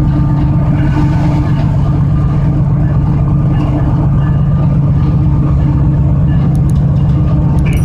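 Diesel locomotive engine running as a loud, steady, low drone that holds one even level.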